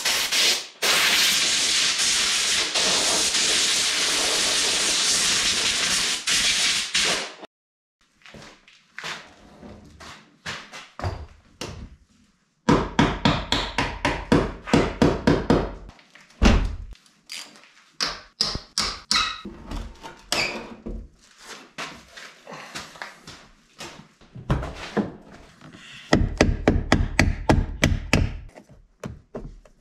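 Hand tools knocking and clanking on the body of a Nissan Skyline R33 under dismantling. It opens with a steady hiss lasting about seven seconds. After that come scattered knocks, then two runs of rapid hammer blows on metal, the last near the end.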